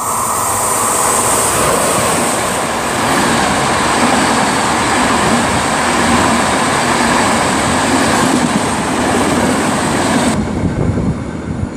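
Train running, a loud, steady rushing rumble with a high hiss that drops away about ten seconds in.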